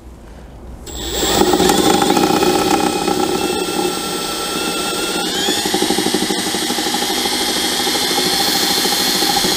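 Cordless drill with a twist bit drilling out a metal rivet, its motor whining steadily. It starts about a second in, and its pitch steps up about halfway through.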